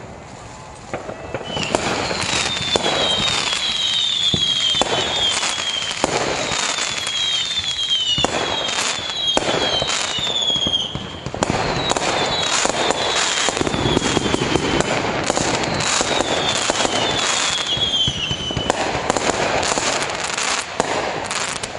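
Fireworks display going off: bang after bang over a steady wash of noise, with clusters of short, high whistles falling in pitch. It gets much louder about a second and a half in.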